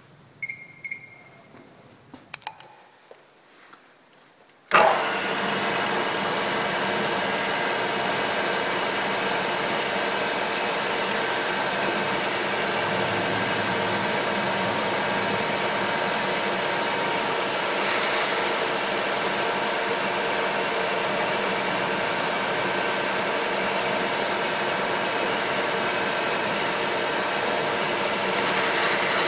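A few light clicks, then about five seconds in a milling machine's spindle starts abruptly and runs steadily with a constant high tone, as a small drill bores holes into the top face of the vise's moving jaw.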